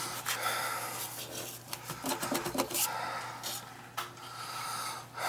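Irregular rubbing and scraping as a gloved hand handles copper water pipes in a tight cabinet, over a steady low hum.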